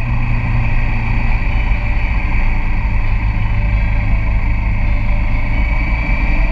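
Motorcycle engine running steadily at cruising speed, with wind rumbling on the microphone of a camera mounted on the moving bike; the engine's pitch creeps up slightly near the end.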